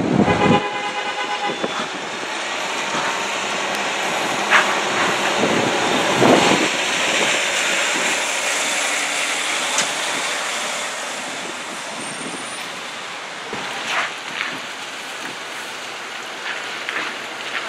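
City buses running on a rain-wet street, with a steady hiss of tyres and traffic. A brief high whine sounds at the start.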